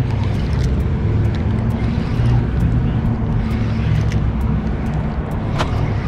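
Steady low rumble of rushing spillway water, with scattered light clicks from handling a spinning reel, one louder click near the end.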